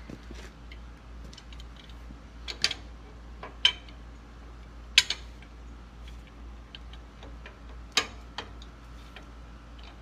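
Sharp metal clinks of a large adjustable wrench on the gland nut of a skid steer's hydraulic lift cylinder as the nut is tightened. About five louder clanks come at uneven intervals, with lighter ticks between them.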